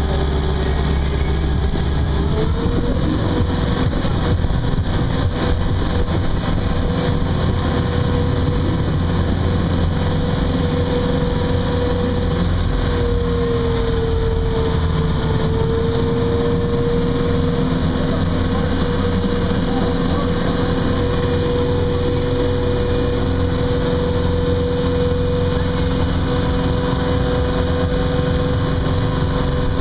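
Small passenger boat's engine running steadily under way, its note stepping up about two seconds in and dipping slightly for a couple of seconds around the middle.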